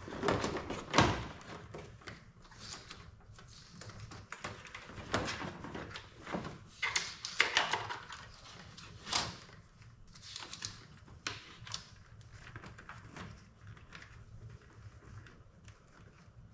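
A plastic hood bezel and wiring on a Can-Am Defender being handled and fitted by hand: irregular clicks, light knocks and rustling, with one heavier knock about a second in.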